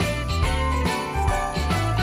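Background music with sleigh bells jingling over a changing bass line.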